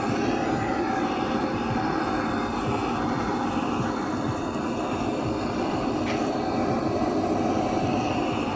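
Handheld butane blowtorch burning steadily, its flame held over sushi rolls to sear them.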